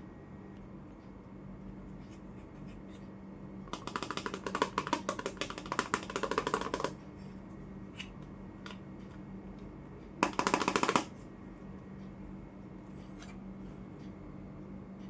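Hands handling small plastic toy kitchen pieces: about three seconds of rapid clicking and rattling starting about four seconds in, then a shorter, louder burst of clatter about ten seconds in.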